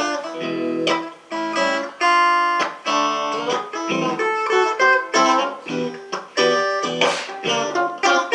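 Instrumental guitar break in a bard song: chords strummed and plucked in a steady rhythm, with no singing.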